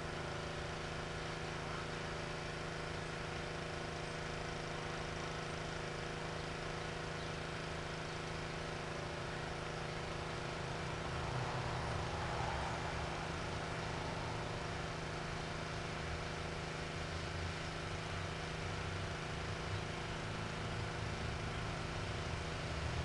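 Pressure washer running steadily, a constant droning hum with a few fixed low tones and their overtones; it grows slightly louder about halfway through.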